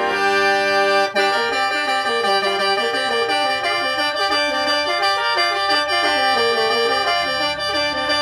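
Khaen, the Lao bamboo free-reed mouth organ, tuned in G minor and played solo in the lai yai mode: a running melody of short notes over steady held drone tones, with a brief break about a second in.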